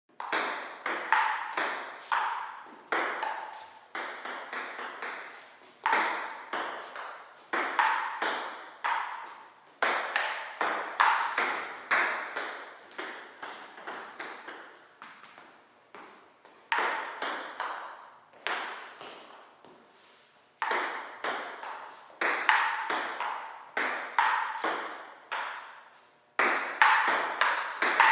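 Table tennis rallies: a ping pong ball clicking back and forth between paddles and the table, a sharp tick about twice a second, each with a short ring. The rallies break off briefly a few times and start again.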